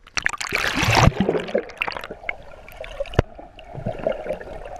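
Water splashing and gurgling around a swimmer, with a loud splash in the first second and a sharp knock about three seconds in.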